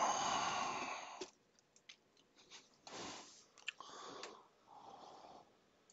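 Close sounds picked up by a headset microphone: a noisy rush of breath or rubbing in the first second, then scattered small clicks and rustles.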